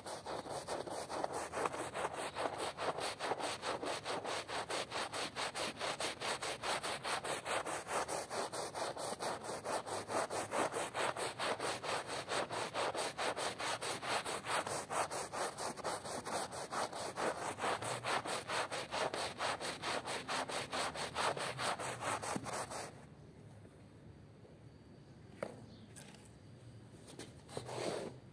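Stiff hand brush scrubbing a soap-foamed rug in rapid, even back-and-forth strokes, a dense scratchy rasp. It stops about 23 seconds in, leaving faint soft rubbing and a few brief scrapes near the end.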